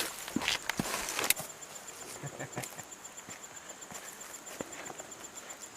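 A high-pitched insect song pulsing at an even rate, with rustling and a few sharp clicks in the first second and a half.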